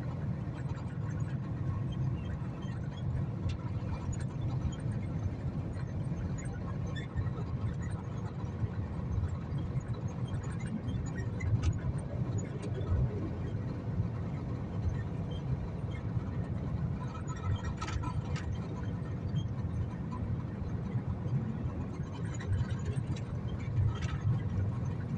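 Strong storm wind buffeting the microphone as a steady low rumble, with a few faint clicks or rattles now and then.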